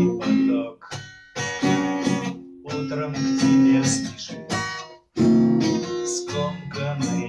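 Acoustic guitar strummed in chords, a solo instrumental passage. The chords are choked off briefly about a second in and again about five seconds in, then strumming resumes.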